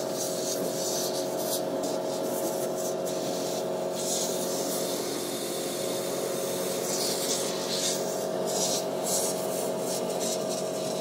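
Compressed-air blower hissing in irregular bursts as it blows loose excess powder off a freshly printed powder-and-glue 3D part, over a steady machine hum.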